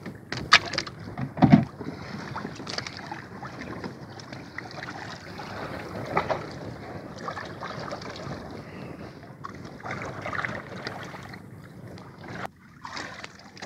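Wind and water lapping around a small outrigger boat at sea, with two sharp knocks in the first couple of seconds and scattered smaller clicks of handling in the boat.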